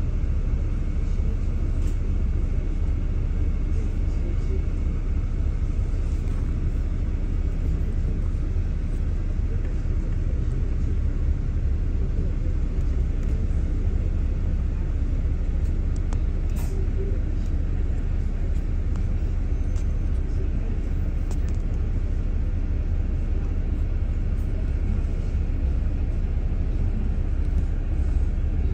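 Double-decker bus in motion, heard from inside on the upper deck: a steady low rumble of engine and road noise, with a few faint clicks and rattles.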